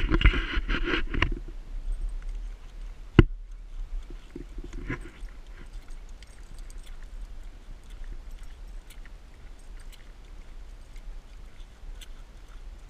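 Dogs walking on asphalt: faint scattered ticking and pattering of paws and prosthetic feet on the pavement over a low steady rumble. A louder scuffing burst comes in the first second and a single sharp knock about three seconds in.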